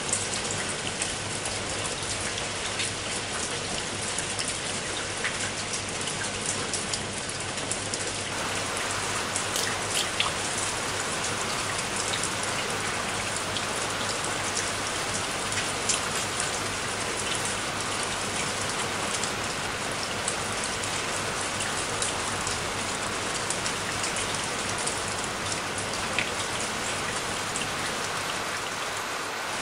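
Steady rain falling on leaves and wet ground, a continuous hiss dotted with the patter of single drops.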